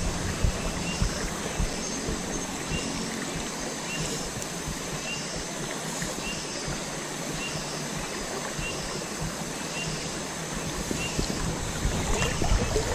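Shallow river current flowing and rippling steadily. Faint short high chirps repeat about once a second. A few small knocks come near the end.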